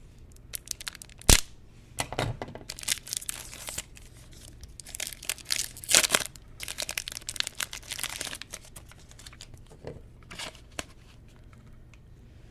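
Plastic trading card pack wrapper being torn open and crinkled by hand, a 2015 Panini Clear Vision Football pack, with one sharp snap a little over a second in, then bursts of crinkling on and off.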